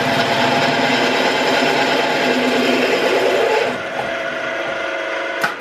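Twelve-speed geared-head drill press running at slow speed with a steady gear whine while a twist drill cuts into a workpiece. The cutting noise stops about two-thirds of the way in and the machine runs on more quietly. A click near the end is followed by the machine winding down.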